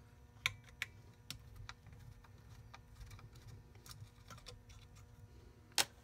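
Scattered light clicks and taps of hands, small tools and parts on a G scale model locomotive's metal frame as its weights are taken out, with a sharper click just before the end, over a faint steady hum.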